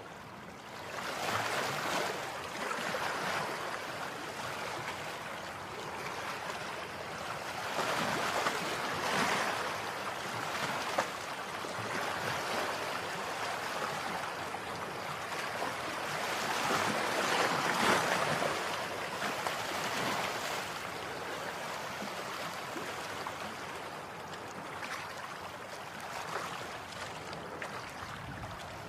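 A steady rushing wash of noise like surf, swelling and easing every several seconds.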